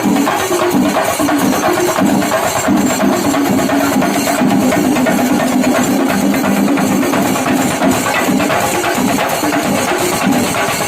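Chenda melam: an ensemble of Kerala chenda drums beaten with sticks in a fast, dense, unbroken rhythm.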